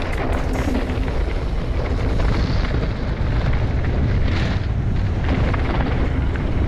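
Wind buffeting a helmet or chest-mounted action camera's microphone during a fast mountain-bike descent, a constant deep rumble, with bike tyres crunching and rattling over a dry dirt trail.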